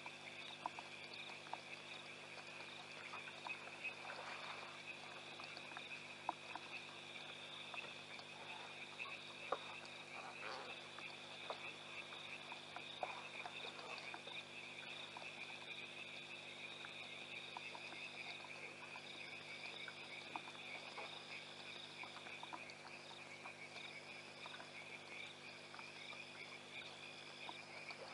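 Faint night chorus of frogs and insects at a waterhole: a steady high trilling runs throughout, and a second, regularly pulsing high call joins about two-thirds of the way in. Scattered soft clicks sound under the chorus.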